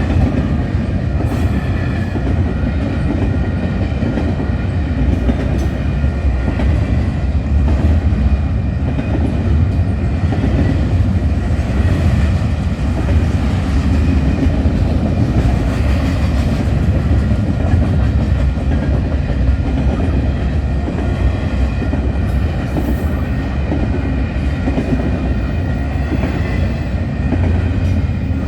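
Freight train's cars rolling past close by: a steady, loud low rumble with wheel clickety-clack over the rail joints and faint high-pitched tones above it.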